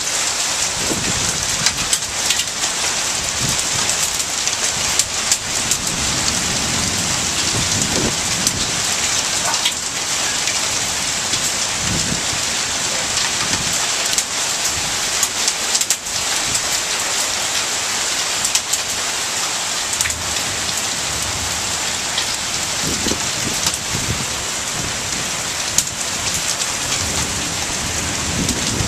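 Heavy downpour hissing steadily, with sharp ticks of raindrops striking a nearby surface.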